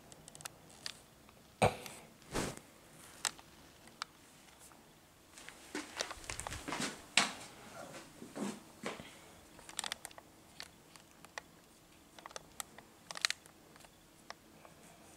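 Handling noise: scattered soft clicks, knocks and rustling as the recording device is moved about, loudest about a second and a half in and again about seven seconds in.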